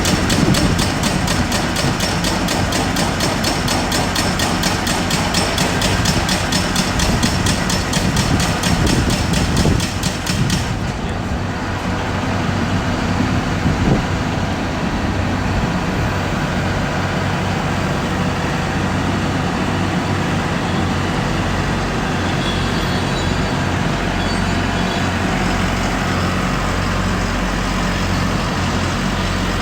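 Diesel-powered solar pile driver working: a fast, even pulsing of several beats a second runs on over the engine and stops abruptly about ten seconds in, after which the engine and hydraulics keep running steadily.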